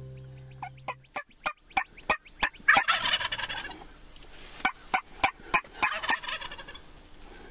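Merriam's wild turkeys calling: two rattling gobbles, about three seconds in and again near six seconds, among a run of short, sharp notes. Guitar music fades out in the first second.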